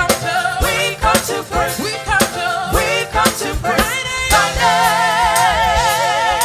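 Live gospel music: a singer runs through wavering melismatic phrases over drum hits, then holds one long note with wide vibrato from about four and a half seconds in.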